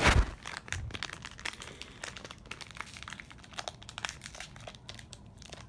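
Pokémon booster pack's foil wrapper crinkling as it is torn open: many short crackles, loudest at the very start.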